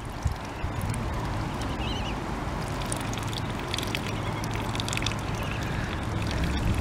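Muscovy ducklings dabbling in wet mud, their bills making many small rapid clicks, with a brief faint peep about two seconds in.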